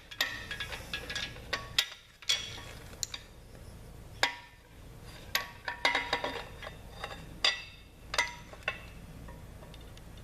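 Steel pieces of a cam bearing installation tool clinking and knocking together as the tool is taken apart, in irregular sharp metallic clinks, some ringing briefly.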